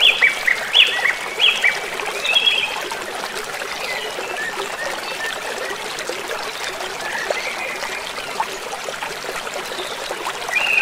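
Nature ambience of a trickling stream, with short repeated bird calls over the first few seconds and fainter calls later on.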